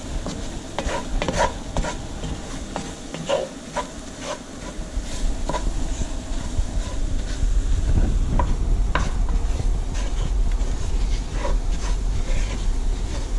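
A roux of flour and fat being stirred in a hot pan as it cooks toward a blonde colour: a utensil scraping and clicking against the pan over a low sizzle. A low rumble grows underneath about halfway through.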